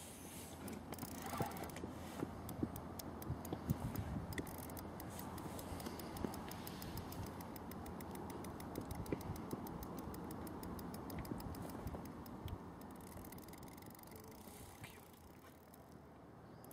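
Spinning reel clicking rapidly and evenly for most of the stretch, under the pull of a large hooked catfish on the bent rod. A few handling knocks come in the first few seconds.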